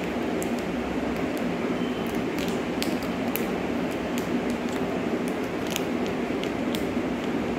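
Plastic powder sachet crinkling and ticking in scattered little clicks as it is squeezed and shaken to tip handwash powder into a bottle of water, over a steady fan-like whirr.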